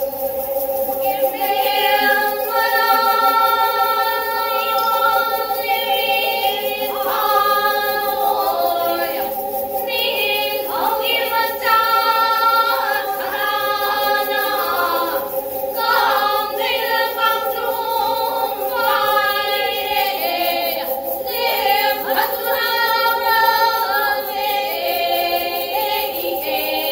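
Four pena, Manipuri single-string bowed fiddles, bowed together in a steady, sustained melody. Female voices join in song about two seconds in and sing together in phrases over the fiddles.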